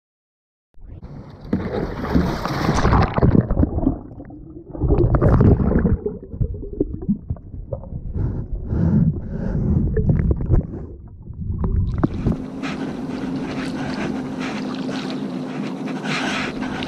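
A paddleboarder falling into the sea, heard through a submerged action camera: irregular splashing and muffled underwater churning for about the first twelve seconds. After that comes a steadier wash of noise with a faint low hum.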